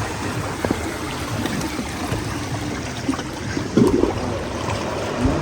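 Shallow seawater washing and trickling around rocks at the shoreline, as a steady noisy wash.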